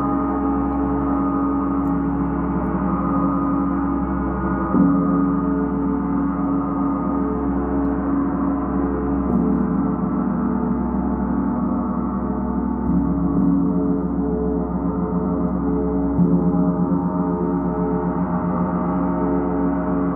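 Large hanging gong played continuously with a round-headed mallet: a steady, dense wash of many overlapping tones that never dies away, kept going by soft new strokes every three to four seconds.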